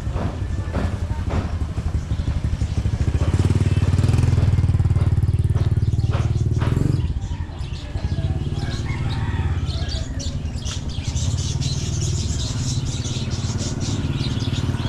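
A small motorcycle engine running close by, loudest for a few seconds, then dropping off about seven seconds in and going on more faintly.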